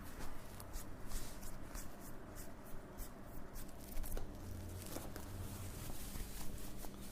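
Close handling noise: a run of quick small clicks and rustles, over a steady low hum.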